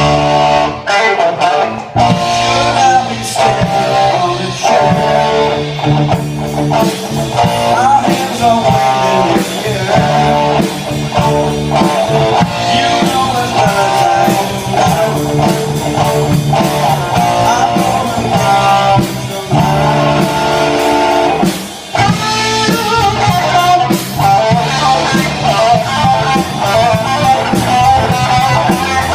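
A live band playing blues-rock, led by electric guitar over bass, with some singing.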